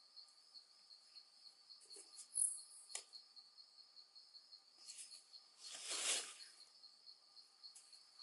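Insects chirring steadily in a rapid pulsing rhythm, with a few faint clicks, a brief high squeak a couple of seconds in, and a short rustle about six seconds in.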